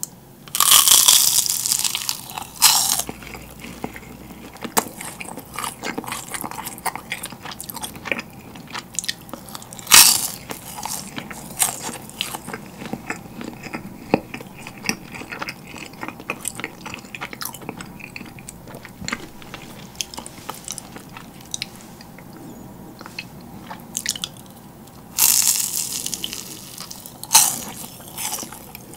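Close-miked crisp bites into yugwa, Korean fried rice-cake confections coated in puffed rice, each bite crackling loudly, with steady crunchy chewing between bites. The loud bites come about a second in, around ten seconds, and twice near the end.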